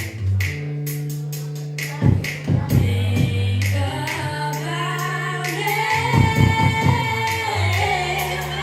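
Music with a steady bass line and drum beat, and a voice singing over it from about halfway in.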